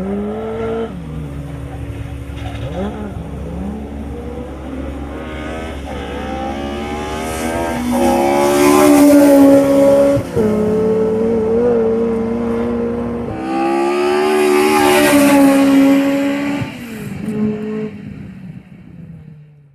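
Ford Escort Mk2 RS rally car's engine revving hard through the gears, its pitch climbing and then dropping at each gear change, loudest twice as the car passes. The engine fades away near the end.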